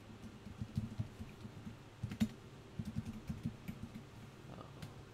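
Typing on a computer keyboard: irregular runs of key presses with short pauses between them.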